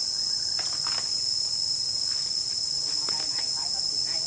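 Insects droning in a steady, high-pitched chorus, with a faint click under a second in.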